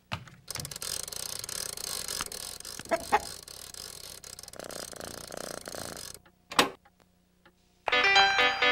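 A few seconds of faint scratchy, rattling noise with an odd knock, then a brief silence. Near the end, music starts playing from a phonograph record as the needle is set down.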